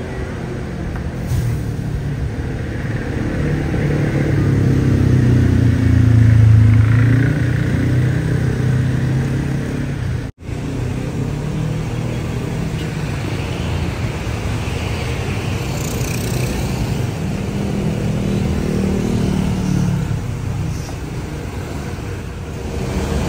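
Mercedes-Benz tour coach's diesel engine running: its note rises and falls as it is revved, drops out for a moment at a cut, then runs on and swells again before easing off.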